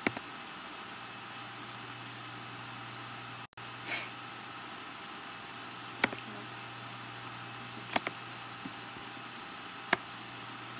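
A few sharp single mouse clicks, a couple of seconds apart (one of them doubled), over a steady low hum and hiss of room noise. A short breathy hiss comes about four seconds in.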